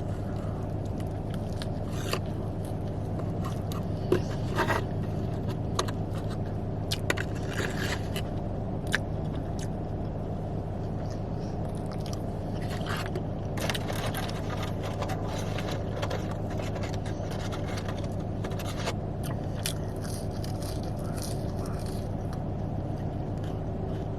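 Eating sounds: chewing and biting into a Big Mac, with scattered small clicks and crackles of the food and its wrapper. These sit over a steady low hum inside a car.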